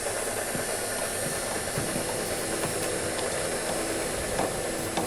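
A steady hiss with a low steady hum and a few faint knocks.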